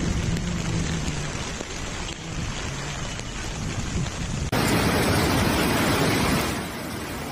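Floodwater and heavy rain rushing, a continuous noisy wash with a faint low hum under it. About four and a half seconds in, it switches abruptly to a louder, denser rush of water.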